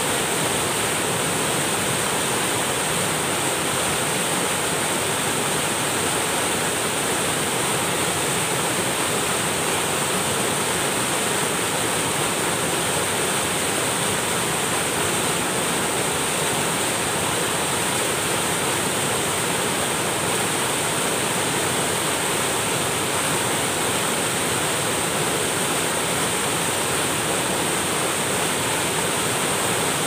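Small waterfall cascading over boulders: a steady, unbroken rush of white water.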